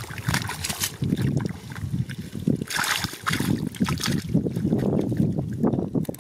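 A basket and hands scooping through thick, watery mud, making wet sloshing throughout, with sharper splashes at the start and again about three seconds in.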